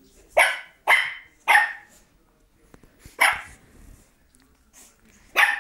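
Dog barking: five short, sharp barks, three in quick succession in the first two seconds, then one a little after three seconds and one more near the end.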